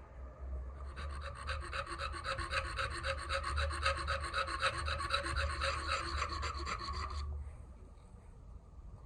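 Steel being filed: rapid, rhythmic rasping strokes for about six seconds that stop abruptly, over a low hum.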